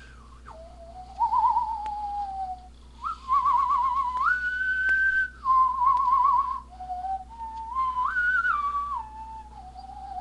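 A person whistling a tune: one clear tone stepping up and down between notes, wavering on some of them, with short breaks between phrases, starting about a second in.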